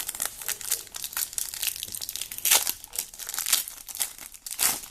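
Plastic trading card packet being crinkled and torn open by hand, a run of sharp crackles with two louder rips about halfway through and near the end.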